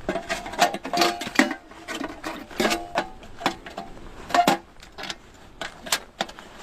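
Hard objects knocking and clinking irregularly, several times a second, a few of the knocks with a brief metallic ring.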